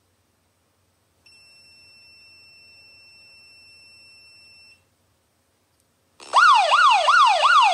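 A faint steady high tone for about three seconds, then about six seconds in a loud emergency alarm starts: a smartphone's Shelly app water-leak alert, sounding as a siren of quick falling sweeps repeating about two and a half times a second, because the flood sensor has detected water on its wire.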